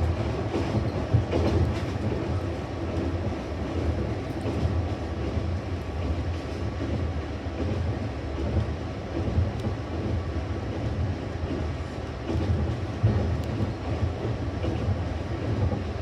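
Passenger train running along the track: a steady low rumble with wheels clattering over the rails.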